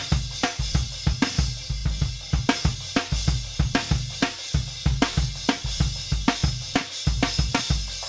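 Drum kit playback: kick and snare hits in a steady beat under continuous hi-hat and cymbals.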